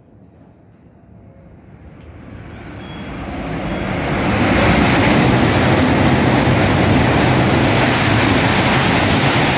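Shinkansen bullet train passing through the station at speed without stopping: a rushing noise that builds over the first four seconds as it approaches, then stays loud and steady while the cars go by.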